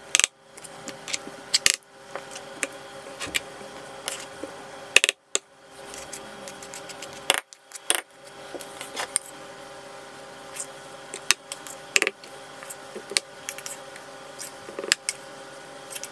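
A metal spoon clinking and scraping against a metal muffin tin as batter is spooned into the cups: irregular sharp clinks, some loud, over a faint steady hum.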